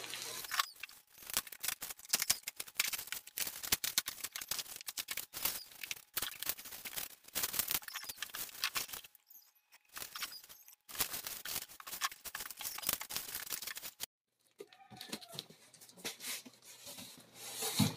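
Scissors cutting open the packing tape and cardboard of a shipping box: dense runs of crackling, scraping clicks, with a short pause about halfway. Near the end, sparser rustling and knocks of the cardboard box being handled.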